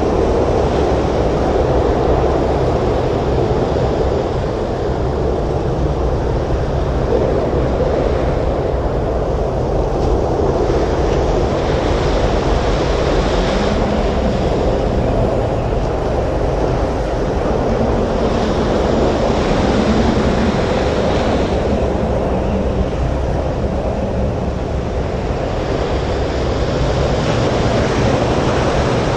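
Stormy sea surf with strong wind: a steady deep rumble of wind and breaking waves, with the hiss of surf swelling up every several seconds.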